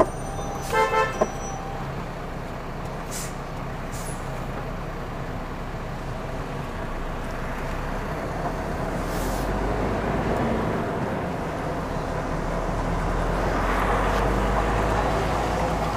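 A lorry's diesel engine drones inside the cab, growing louder after about eight seconds as the truck pulls away and turns. A short horn toot sounds about a second in.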